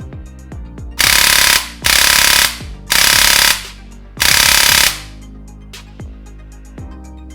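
Electric gel blaster with a modular V2 gearbox firing four short full-auto bursts, each a rapid even rattle of the gearbox cycling, with brief pauses between them. Background music plays underneath.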